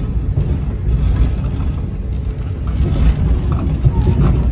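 Steady low rumble of an Amtrak Northeast Regional passenger train running along the track, heard from inside the passenger car.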